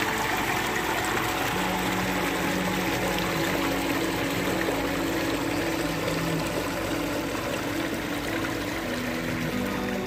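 Shallow water flowing steadily through a concrete culvert pipe in an irrigation channel, a continuous rushing and trickling, with faint held notes of background music underneath.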